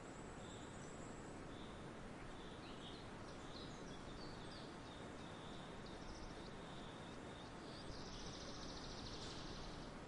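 Forest ambience: a steady soft hiss with small birds chirping in short repeated notes, and a buzzy, rapid trill about eight seconds in.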